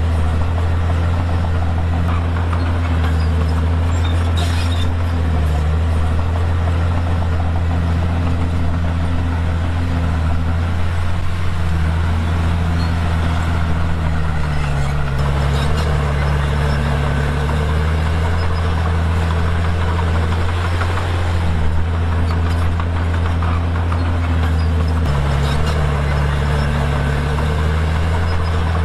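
Diesel engine of a Komatsu D51PX crawler bulldozer running steadily under load, its pitch dipping and recovering several times as the load changes.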